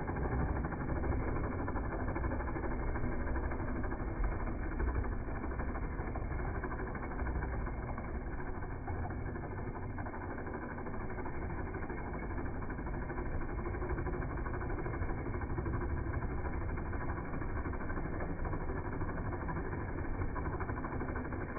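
OO-gauge model locomotive running on the layout: a steady motor hum and rumble of wheels on track.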